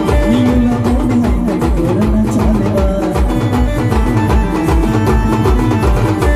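A live band playing dance music: large bass drums beaten in a fast, steady rhythm under a melody line of long held notes.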